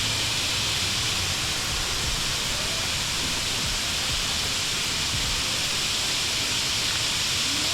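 Steady rushing noise of falling water, even and unbroken.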